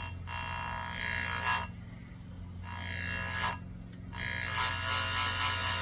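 Electric chainsaw-chain grinder: the spinning wheel grinds the chain's cutters in three passes, the last one longest, while the motor hums steadily between them.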